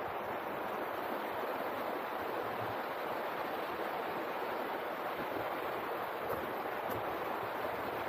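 Steady rushing of a fast mountain river running over rocks.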